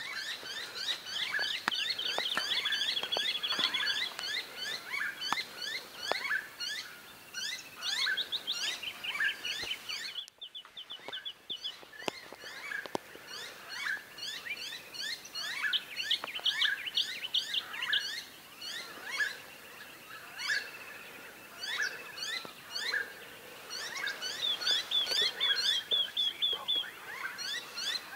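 Chorus of many birds calling over each other: short chirps and quick downward-sweeping whistled notes. It briefly drops out about a third of the way in, and near the end one bird gives a fast run of repeated high notes.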